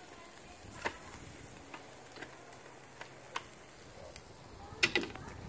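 A few sharp, isolated clicks and light knocks a second or so apart, the loudest a quick pair near the end.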